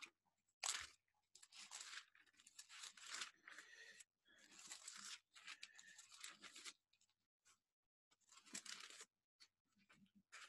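Pages of paper scripture books being leafed through: faint rustling in several spells of about a second each, with short pauses between.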